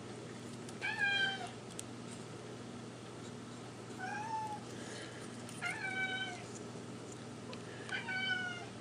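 A domestic cat meowing four times, each call about half a second long and arching up then down in pitch: the cat is complaining.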